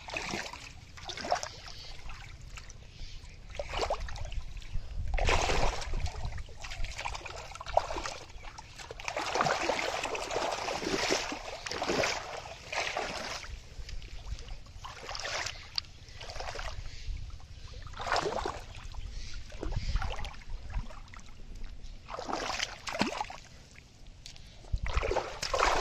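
Muddy shallow water splashing and sloshing in irregular bursts as a person wades and sweeps their hands and arms through it, groping for fish.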